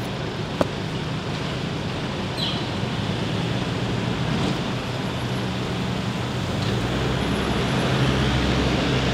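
Motor vehicle driving on a road: steady engine and road noise, growing a little louder near the end, with one sharp click about half a second in.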